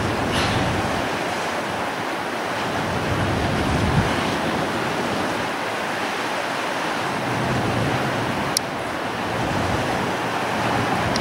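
Strong wind blowing across the microphone, a steady rushing noise with low rumbling gusts. A brief thump about four seconds in and a sharp click a little after eight seconds.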